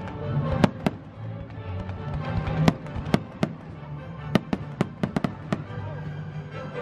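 Aerial fireworks bursting: about a dozen sharp bangs at irregular intervals, several in quick succession about five seconds in, over steady music playing underneath.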